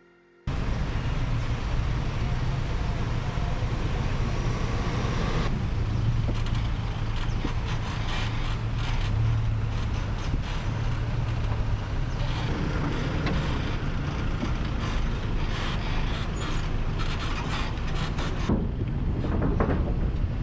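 A vehicle driving, with a steady low engine and road rumble. Wind buffets the microphone.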